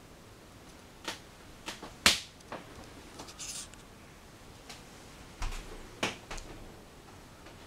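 Scattered short clicks and knocks, several seconds apart, the loudest about two seconds in, with a brief hiss near three and a half seconds: movement and handling noises as someone walks through a small wood-panelled boat cabin with a handheld camera.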